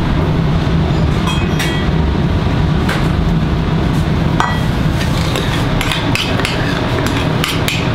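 Stainless steel sauce boat and saucepans clinking and knocking as they are handled, with two ringing clinks about a second and a half and four seconds in, and quicker clicks in the second half. Underneath is a steady low rumble of the commercial kitchen.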